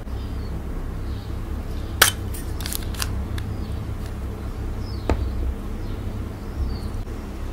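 A few sharp plastic clicks and taps from a lip balm and lipstick being handled and a cut lipstick piece being set down on the board. The loudest click comes about two seconds in, with a quick cluster just after and another near five seconds, over a low steady hum.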